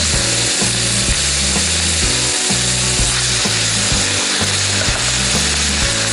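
Food sizzling steadily in a frying pan, with background music's bass line underneath.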